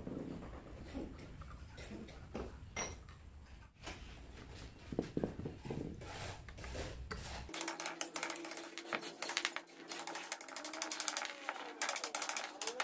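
Small metal parts clicking and knocking as a steel connecting rod is fitted by hand to a crankshaft assembly. About halfway through this turns into a fast, even run of metallic clicks.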